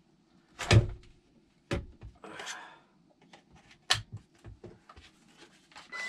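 Hard plastic clicks and knocks as an accessory is fitted onto a Moolan cordless stick vacuum: a loud knock about a second in, a sharp click near four seconds, and lighter ticks between. The vacuum's motor starts at the very end.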